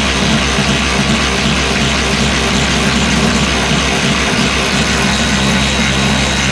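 Power tool's electric motor running steadily under load, a continuous hum with a hiss over it.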